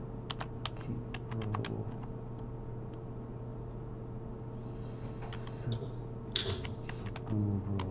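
Computer keyboard typing: irregular key clicks in short quick runs as a word is typed, over a steady low hum.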